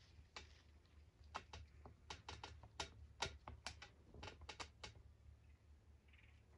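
A run of sharp, irregular clicks close to the microphone, about fifteen of them, most between one and five seconds in, over a faint low hum.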